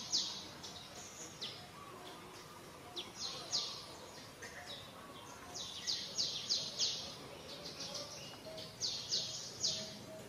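Birds chirping: short, high, quickly falling chirps in runs of two to five, several runs over a faint steady background.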